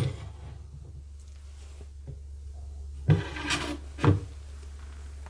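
Kitchen knives stuck in a wooden cabinet floor being handled: a sharp knock, a scraping rub of blade and wood about three seconds in, and another knock a second later.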